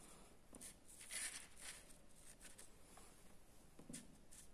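Near silence: room tone with a few faint, brief rustles.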